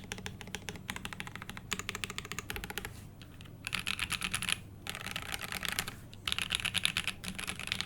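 Typing on a Mode SixtyFive mechanical keyboard with lubed Tangerine linear switches on a brass plate in an isolated top mount: fast runs of keystrokes broken by brief pauses, the longest about three seconds in.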